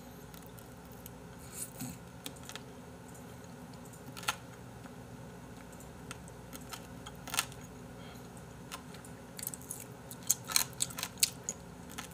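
Close-miked mukbang eating sounds: scattered wet mouth clicks and smacks as chicken from a spicy braised stew is eaten off the bone by hand. There is a quick cluster of them near the end.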